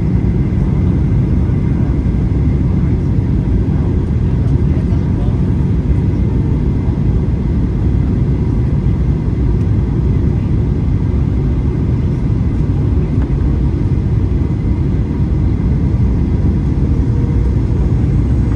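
Boeing 737-800 in flight or on the runway: the steady, loud rumble of its CFM56 jet engines and rushing air, heard from inside the passenger cabin.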